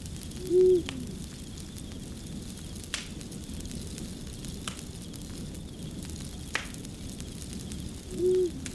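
Fire crackling steadily with a few sharp pops. Two short, low, arched call-like tones stand out above it, one just after the start and one near the end.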